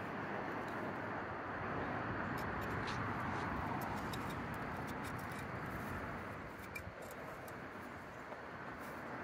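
Steady rushing background noise, with faint scrapes and clicks of a hand digger and fingers working through soil and grass.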